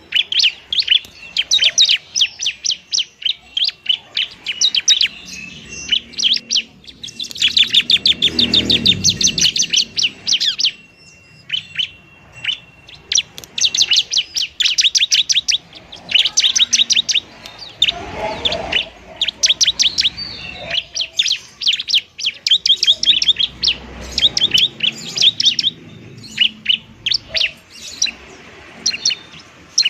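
Bar-winged prinia (ciblek) singing its fighting song: bursts of rapid, high chirps with short gaps, and one held whistle a little before the middle. It is an aggressive, territorial song of the kind used to lure prinias and to provoke caged ones into singing.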